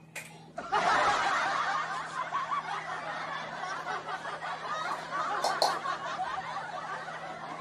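A man's suppressed laughter, snickering and chuckling under his breath, starting about half a second in. Two short clicks come a little past the middle.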